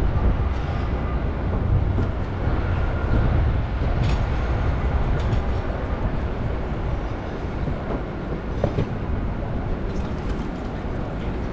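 City street noise: a steady low rumble of vehicles, with a few short clicks.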